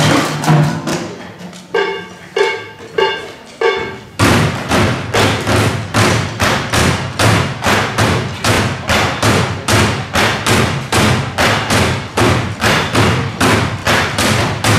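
Plastic wheelie bins played as drums with sticks and hands. After a hit and a few ringing pitched strokes, a steady fast beat of thudding strokes starts about four seconds in, about three strokes a second.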